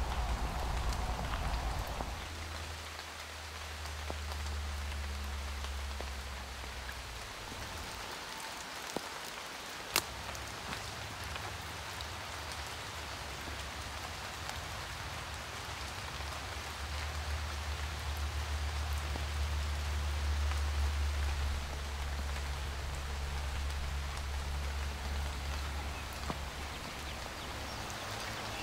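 Steady patter like falling rain, with a low rumble that comes and goes and a single sharp click about ten seconds in.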